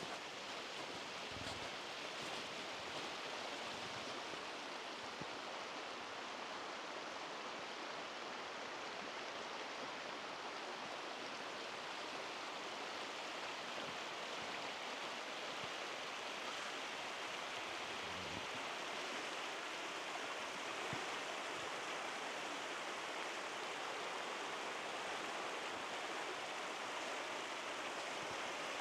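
Steady rush of running water from a stream, growing slightly louder toward the end, with a couple of faint low thumps.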